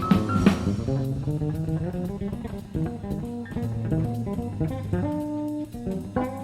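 Live jazz-fusion band playing from a cassette tape recording: guitar lines over bass guitar and drums, with a cymbal stroke about half a second in.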